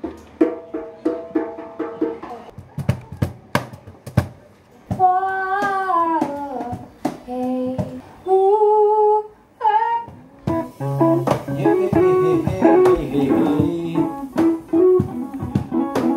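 Live acoustic music: a guitar picked in an even rhythm, joined about five seconds in by a singing voice, with fuller guitar and singing together from about ten seconds on.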